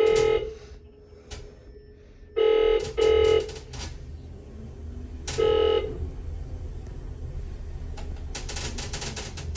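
Thyssenkrupp passenger lift travelling up, heard from inside the car: a low steady hum of the ride, with short electronic beeps, one at the start, two in quick succession about two and a half seconds in, and one more about five and a half seconds in. A quick run of clicks comes near the end as the car nears the floor.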